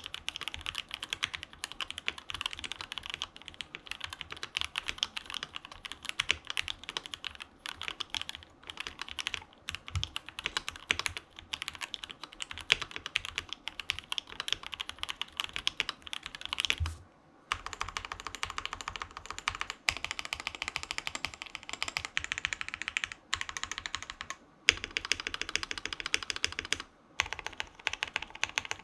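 Steady, fast typing on a KBD67 Lite mechanical keyboard with Gateron KS3 Yellow linear switches lubed with 205g0, a polycarbonate plate with silicone dampening, and ABS keycaps. A few short pauses break the typing in the second half.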